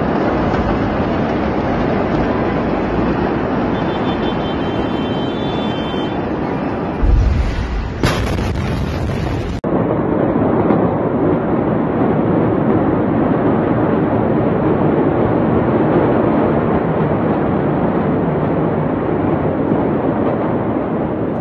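Phone-recorded sound of the Beirut port explosion: a loud, continuous rumbling noise, with a heavy low boom about seven seconds in and a sharp crack a second later.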